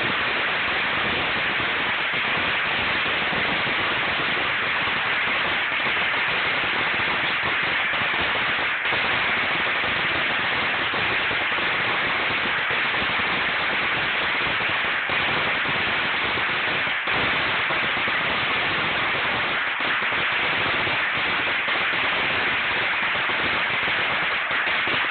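A long string of firecrackers going off nonstop, the bangs so close together that they merge into one dense, steady crackle.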